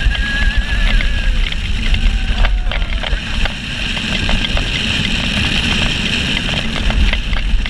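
Steel roller coaster train running fast along its track: a steady low rumble with wheels clattering over the rails and wind buffeting the microphone. A brief high wavering squeal sounds in the first second.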